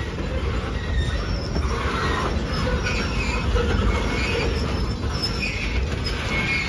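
Freight train of boxcars and tank cars rolling past at close range: a steady rumble of steel wheels on rail, with short, irregular high squeals from the wheels.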